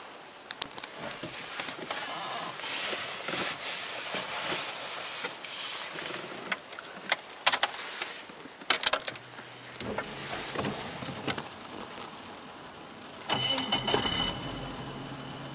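Sharp clicks of dashboard switches being operated in a 1999 Subaru Legacy's cabin, over rustling handling noise. A steady low hum joins about two thirds of the way through, and a louder whirring burst follows near the end.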